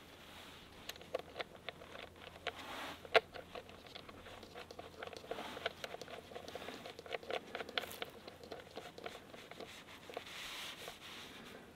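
Light, irregular clicks and taps of cable clips being handled and fitted on the terminals of a pair of 6-volt batteries, with faint rustling.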